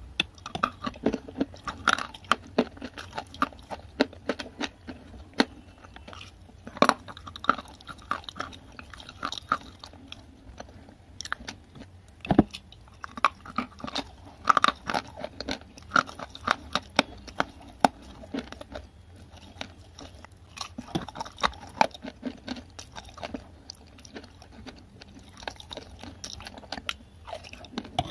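A person chewing and crunching chunks of clay coated in a wet, creamy paste, close to the microphone: irregular sharp crunches several times a second, with wet chewing between them.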